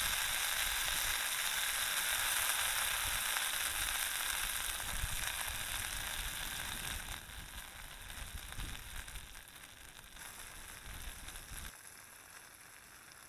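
Potatoes and onions sizzling in butter in a cast iron skillet over a wood-fired stove, with a few light knocks of a wooden spatula stirring them. The sizzle dies down in the second half and drops further near the end as the pan comes off the heat.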